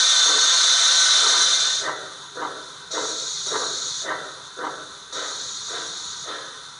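Zimo DCC sound decoder in an O gauge GWR 0-4-2 tank locomotive model playing steam sound through its speaker, its volume turned up to 100: a loud steady hiss for nearly two seconds, then even chuffs about two a second as the loco moves off in reverse.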